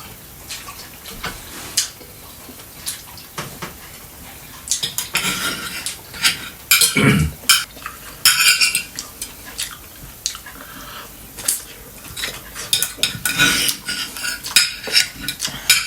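Cutlery clinking and scraping against plates and dishes during a meal, in irregular sharp clicks with a few louder clatters.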